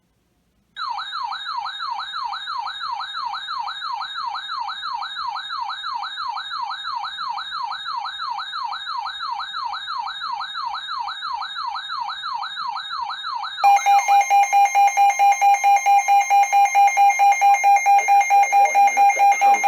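Electronic siren warbling fast, rising and falling about three times a second, then about thirteen seconds in switching to a louder alarm tone that beeps rapidly, nearly four times a second.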